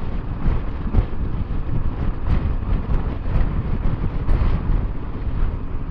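Wind buffeting the microphone of a Honda Transalp 700 motorcycle on the move, a steady low rush with short gusts, road and engine noise underneath.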